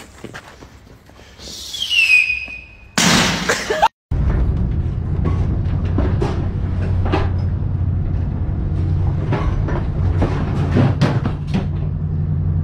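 A falling whistle-like note, then a loud noisy burst about three seconds in. After a short break, a boat's engine drones low and steady under scattered knocks and thumps as things and a person move about the rolling galley.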